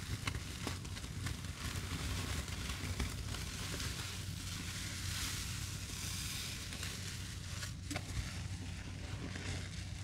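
Sponges soaked with cleaning paste, dish soap and Comet powder being squeezed and worked by gloved hands: a steady wet hiss with many small clicks.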